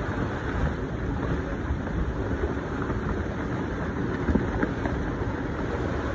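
Wind buffeting the microphone and water rushing along the hull of a Sabre 34 Mk II sailboat sailing upwind: a steady noise with no breaks, heaviest in the low end.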